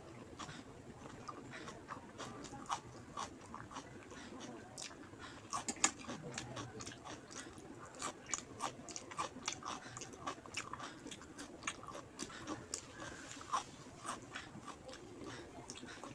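Close-up chewing and mouth sounds of someone eating rice with fish curry: many short, irregular clicks and smacks, the loudest about six seconds in.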